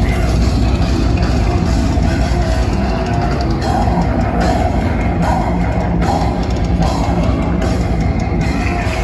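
A deathcore band playing live and loud: heavy distorted guitars over a pounding drum kit.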